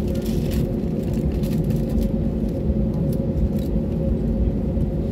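Cabin noise of an Airbus A320neo taxiing after landing: a steady low rumble from the idling engines and rolling wheels, with a steady hum and a few faint light rattles.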